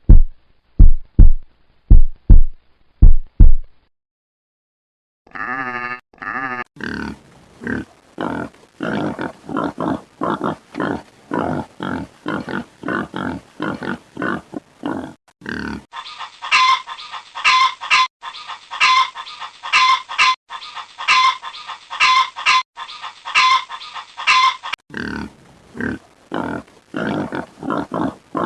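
A few low thumps, a short silence, then a run of short animal calls repeated about once or twice a second, in several spliced clips.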